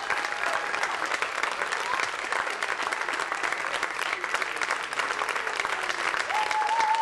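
Theatre audience applauding, steady dense clapping throughout. A held pitched sound comes in near the end.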